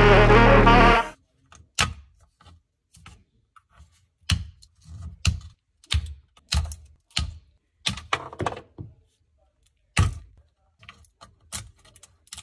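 Music cuts off about a second in, then irregular sharp clicks and knocks of hard 3D-printed plastic gear pieces being handled and picked up off the printer bed.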